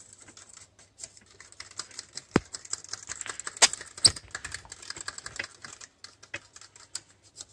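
Thin plastic stirrer clicking and tapping quickly against the inside of a small plastic sample cup as a semen sample is stirred, with a few sharper, louder clicks midway.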